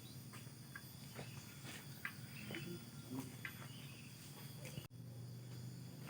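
Crickets chirping in a steady, high-pitched chorus, over a faint low hum and scattered small clicks.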